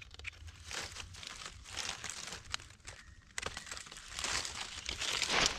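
Dry fallen leaves crackling and rustling in irregular bursts as gloved hands work through the leaf litter to cut and lift a mushroom, busiest near the end.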